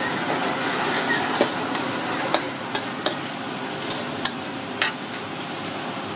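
Minced meat and chopped green chilies sizzling in hot oil in a wok, stirred with a metal spatula that scrapes and clacks against the pan about six times.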